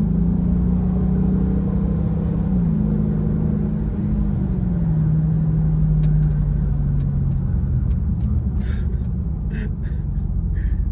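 Dodge Charger R/T's 5.7-litre V8 pulling under throttle: the engine note climbs and holds, steps up once more, then drops in pitch about four seconds in and settles lower before easing off near the end.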